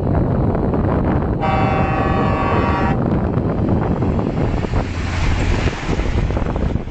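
A truck horn blows once for about a second and a half, a chord of several steady tones, over loud road rumble and wind buffeting on the microphone.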